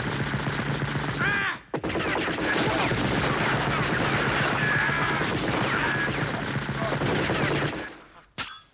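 Cartoon gunfire sound effects: rapid automatic fire in long bursts with rising and falling whines over it. It breaks off for a moment just under two seconds in, resumes, and dies away near the end.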